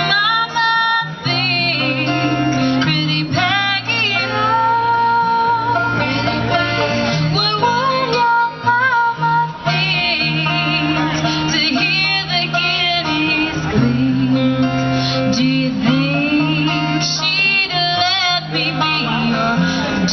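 A live acoustic bluegrass band playing: acoustic guitars strumming along with other plucked string instruments, and a woman singing.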